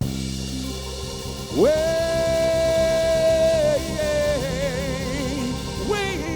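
A soul band cuts in suddenly, and a lead singer slides up into one long held note, then sings a wavering run of shorter notes over the band.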